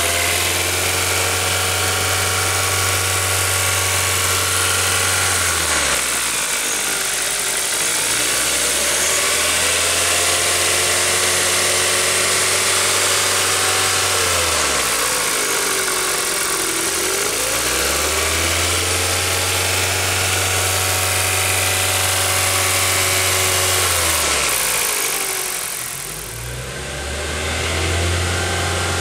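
Kia Ceed's 1.6-litre G4FG four-cylinder 16-valve petrol engine held at high revs for several seconds at a time, dropping back and rising again about three times.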